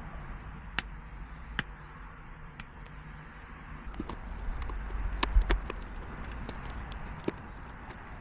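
Handling noise of a wire and a thin plastic fuel pipe being taped together with electrical tape and pushed into a hole in the floor: scattered small clicks and ticks, with a low rumble that swells around the middle.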